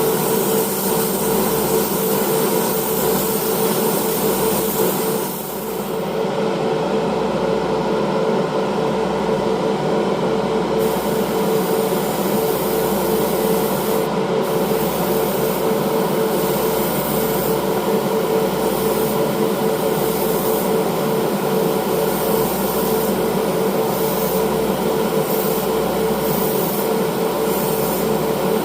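A machine running steadily, an even rushing noise with a constant hum; it dips briefly about five seconds in.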